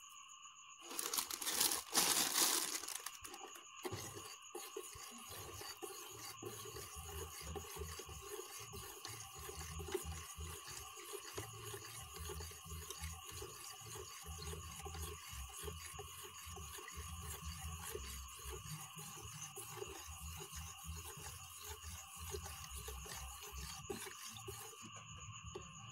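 Urea fertiliser granules poured from a plastic bag into a plastic tub of aqua regia about a second in, then a plastic spoon stirring and scraping round the tub in quick repeated strokes, dissolving the urea to neutralise the excess acid.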